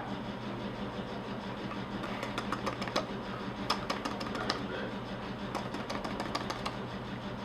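A steady low hum with many short, scattered clicks and taps over it.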